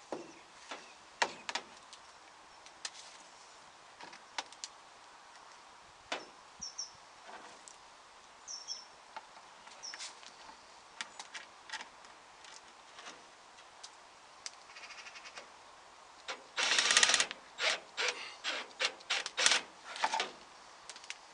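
Cordless drill driving screws through plastic guttering into the wooden eave, in several short loud bursts over the last few seconds. Before that come scattered knocks and taps as the gutter is handled and held in place, and a bird chirps a few times.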